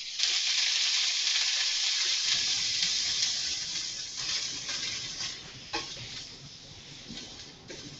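Wet, rinsed browned ground beef sizzling as it is poured back into a hot frying pan. The sizzle is strongest at first and fades gradually, with a couple of light knocks near the end.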